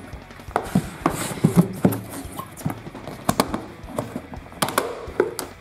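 Hard plastic clicking and knocking as the two halves of a Zuru Smashers Monster Wheels toy tyre capsule are prised apart by hand, in a run of irregular sharp clicks.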